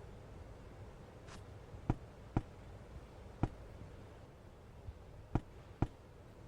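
About six short, sharp taps or knocks at irregular intervals, like small hard objects being set down or handled.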